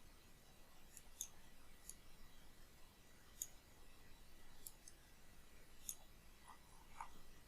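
Faint, scattered clicks of a computer mouse, a few seconds apart, against near silence.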